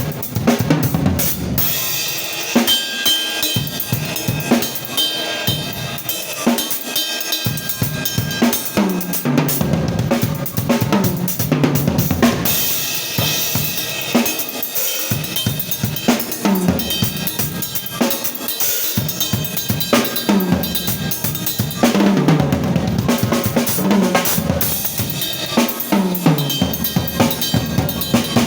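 Drum solo on a drum kit: dense, continuous playing of bass drum, snare and cymbals, with several fast runs of hits that step down in pitch, like tom fills.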